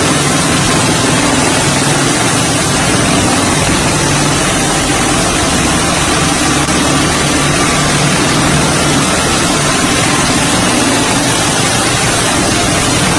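Bell Boeing V-22 Osprey tiltrotor running on the ground, its twin turboshaft engines driving both proprotors in helicopter mode. It gives a steady, loud rush of noise with a low hum underneath that does not change.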